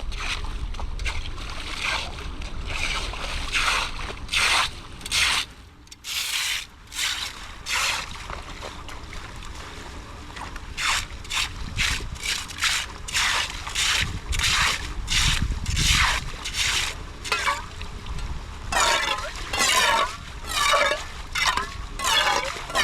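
A hand tool scraping and raking debris from a clogged drain in repeated strokes, about one or two a second, with water trickling.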